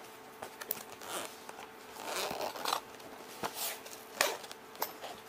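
Zipper of a soft fabric soldering-kit case being drawn open in short, irregular rasps, mixed with rustling and handling of the case as its lid is opened.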